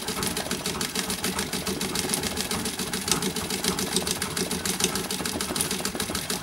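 Vintage treadle straight-stitch sewing machine running steadily, stitching through hooped fabric in free-motion embroidery: a fast, even clatter of stitches.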